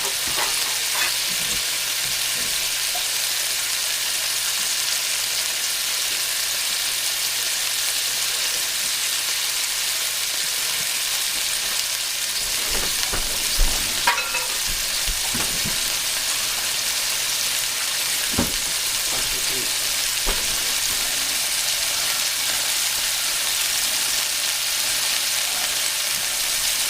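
Beef-and-pork burger patties sizzling steadily in a hot cast iron pan. A few brief knocks come through about halfway in and again a little later.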